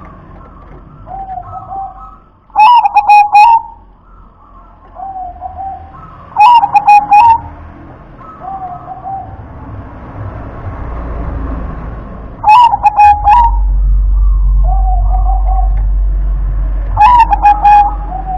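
Zebra dove (perkutut) singing: four loud phrases of quick rolling coo notes, each about a second long and several seconds apart, with softer, lower coos in between.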